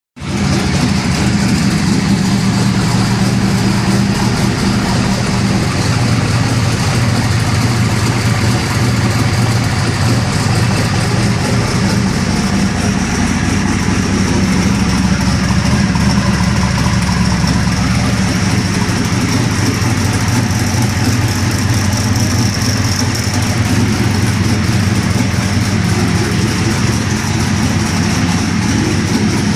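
Twin-turbocharged 383-cubic-inch V8 of a 1998 Pontiac Trans Am running at a steady idle on its first start after the build, with a thin high whine over the engine note.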